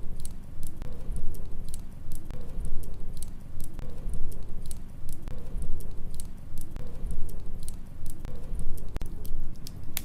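Wood fire crackling with many small, sharp pops, over a low rumble of storm wind that rises and falls.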